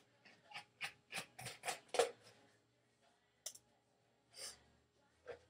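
A serrated knife sawing through the hard rind of a spaghetti squash: a quick run of short cutting strokes, about four or five a second for the first two seconds, then a few scattered strokes.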